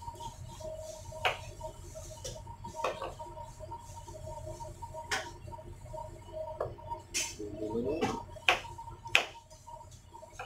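Kitchen knife slicing a tomato on a plastic cutting board: about ten sharp, irregular knocks of the blade striking the board, the loudest near the end, over a steady background hum.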